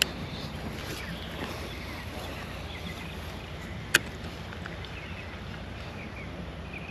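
Wind rumbling steadily on the microphone outdoors, with a sharp click at the start and a louder single click about four seconds in.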